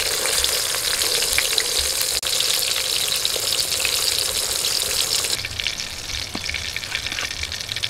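Semolina-and-rice-flour-coated pomfret deep-frying in hot oil in a wok: a dense, steady sizzle and crackle. It drops to a fainter crackle a little over five seconds in.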